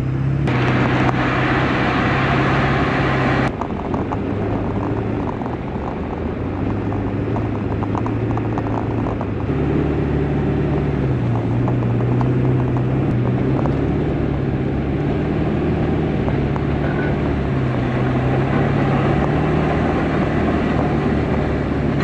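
Ford F-350 Power Stroke diesel engine running steadily while the truck drives on a snowy road, towing a trailer, with tyre and wind noise over a low engine hum. A hiss sits over it for the first few seconds, and the sound shifts about 3.5 and 10 seconds in.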